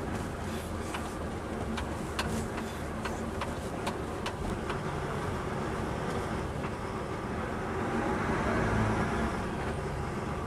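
DAF truck's diesel engine and road noise heard from inside the cab while driving slowly. A run of light clicks comes through in the first few seconds.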